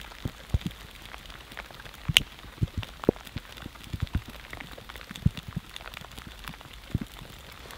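Steady rain falling, with irregular close taps and ticks of raindrops throughout and a sharper click about two seconds in.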